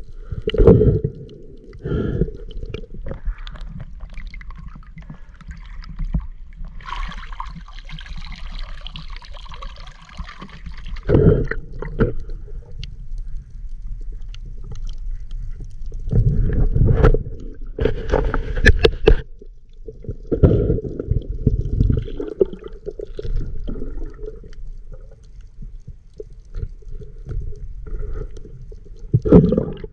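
Muffled underwater gurgling and water movement heard through an underwater camera, with irregular louder low rushes every few seconds and a stretch of hiss about a third of the way in.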